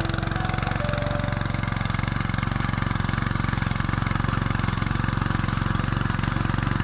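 Small single-cylinder petrol engine of a Tasco BK 55H mini tiller, a Honda GX160, running steadily at an even speed.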